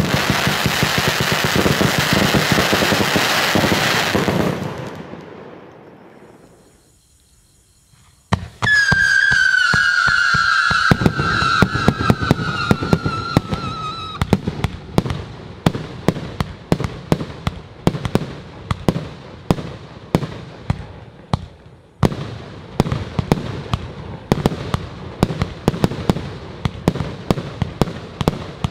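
Consumer fireworks compound firing. Dense rapid crackling fades out over the first six seconds into a brief lull. Then a new segment opens with a whistle that slides slightly down in pitch for about five seconds, joined and followed by a fast string of sharp bangs that keeps going, with a fresh volley starting about 22 seconds in.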